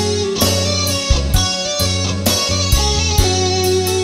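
Music: an instrumental passage led by electric guitar, over bass and a steady beat of about two strokes a second.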